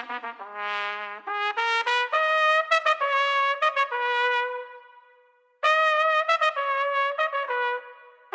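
Background music: a lone brass-sounding melody of short and held notes with no beat, breaking off for a moment about five seconds in.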